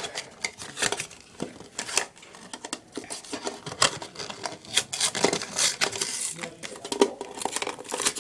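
Toy packaging crinkling and rustling as it is handled and opened, with irregular sharp clicks and light knocks throughout.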